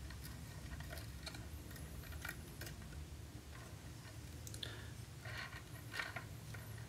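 Faint, scattered light clicks and taps of hard clear acrylic as a MOOCA rotating sunglasses display is handled, over a low steady room hum.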